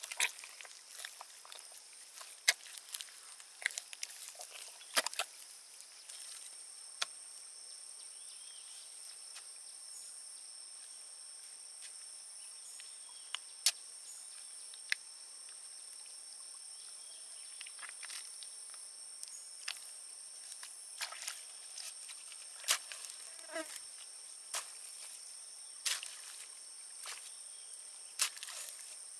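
Steady high-pitched insect drone in two tones, setting in about six seconds in, with sharp clicks and knocks scattered throughout.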